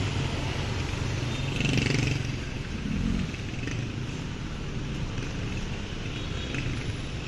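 Street traffic, mainly motorcycle engines, making a steady low rumble that swells slightly about two seconds in.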